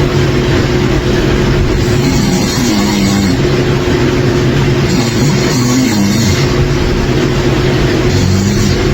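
A person snoring loudly, three long snores about three seconds apart, over a steady low hum.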